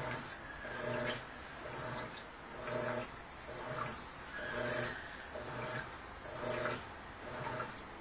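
Electrolux Turbo Economia 10 kg (LTD11) top-load washer agitating a heavy bedspread: a short motor hum with each back-and-forth stroke of the agitator, about one a second, over water sloshing and splashing in the tub. It runs very quietly.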